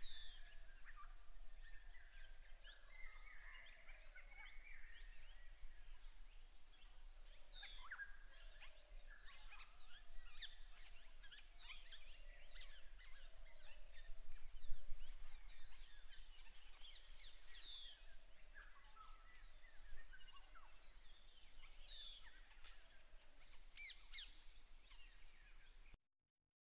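Several birds calling in a forest chorus, many short chirps and whistles overlapping. The sound cuts off abruptly near the end.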